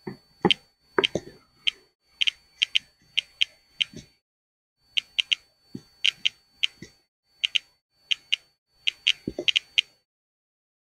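Handheld radiation detector clicking and beeping at irregular intervals, about three counts a second, held at radium-painted watch dials. The rapid count is the sign of their much higher radioactivity.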